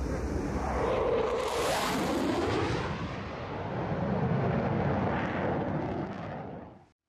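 Fighter jet flying past overhead, its engine noise a rushing rumble with a swirling, sweeping quality. It swells about a second in and again past the middle, then fades and cuts off near the end.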